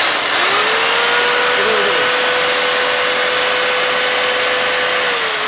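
Electric chainsaw with a 16-inch bar running free without cutting: the motor spins up in the first half second to a steady high whine with the chain rattling, and dips briefly near the end as the trigger eases.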